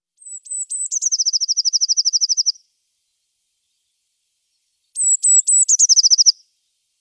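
Blue tit singing two phrases. Each phrase is a few thin, very high notes running into a fast, even trill a little lower in pitch. The second phrase starts about five seconds in.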